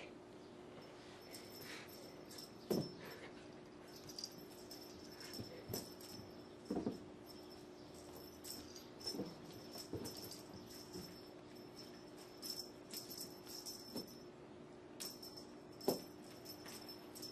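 Soft thumps and rustles of kittens pouncing and flipping on carpet as they bat at a feather wand toy, scattered every second or two, the sharpest about three, seven and sixteen seconds in, over a steady low hum.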